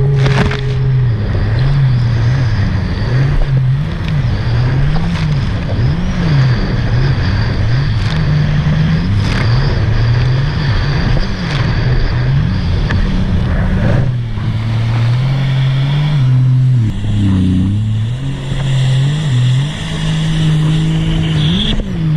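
Supercharged Sea-Doo 300 personal watercraft engine running hard, its pitch rising and falling over and over, about once a second, with a deeper dip in revs about three-quarters of the way through.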